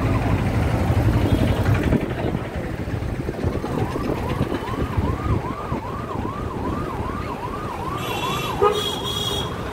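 Street traffic with a small electronic siren warbling, rising and falling about twice a second, over the low running of motorcycle and car engines, which is heavier in the first two seconds. A short high tone sounds near the end.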